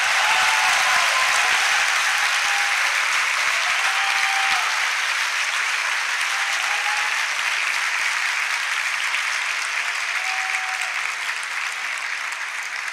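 A large audience applauding in a long, steady round of clapping that slowly dies down near the end.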